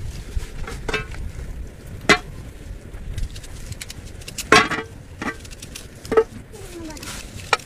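Boiled eggs being cracked and peeled by hand over a metal pot: a handful of sharp clicks and cracks of eggshell, the loudest about two seconds in and about halfway through, over a steady low background rumble.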